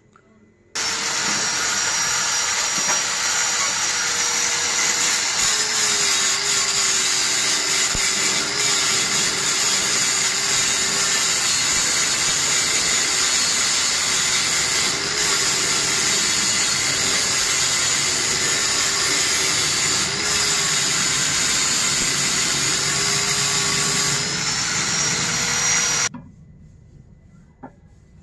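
Electric grinder grinding down the welded seam of a steel scooter muffler, the motor's pitch dipping and recovering as the disc bites. It switches on about a second in and cuts off a couple of seconds before the end.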